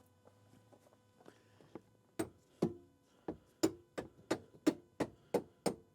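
Hammer blows on a steel rebar bar wedged under a rusted, seized Jeep back seat to pry it loose: about ten sharp metal strikes, quickening to about three a second, some ringing briefly. The strikes start about two seconds in.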